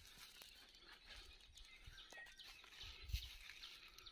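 Near silence: faint outdoor ambience with distant birds chirping, and a few soft low thumps about three seconds in.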